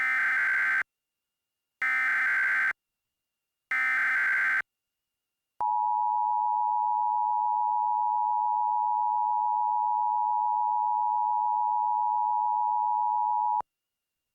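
Emergency Alert System SAME header: three short bursts of screechy digital data tones, about a second apart. Then comes the EAS two-tone attention signal, a steady harsh dual-tone alarm held for about eight seconds and cut off suddenly, marking the start of an emergency alert.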